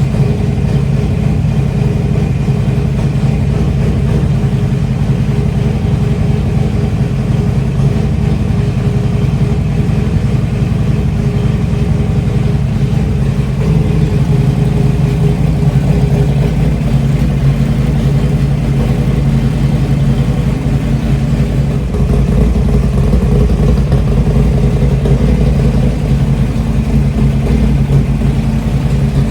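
Freshly rebuilt Harley-Davidson Twin Cam V-twin engine running steadily, a little louder from about halfway through.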